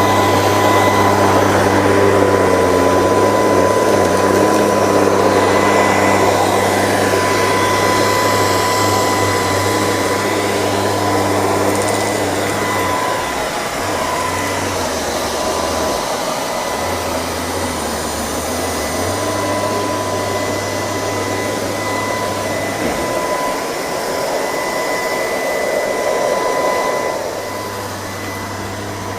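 LG R9 robot vacuum running, a steady high motor whine over the rush of its suction, a little quieter for the last couple of seconds.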